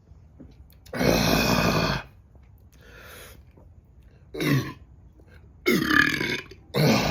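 A person belching loudly after chugging a 40-ounce bottle of carbonated beer: one long belch lasting about a second, then three shorter belches.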